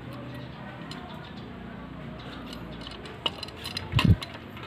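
Small metal clicks and clinks as a black Karasawa 80 mm drum brake housing is handled and fitted onto a bicycle's rear hub axle, with a louder knock about four seconds in.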